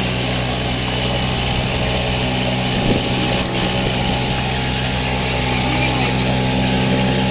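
Boat engine running at a steady, even pace with a constant low hum, under the hiss of wind and water.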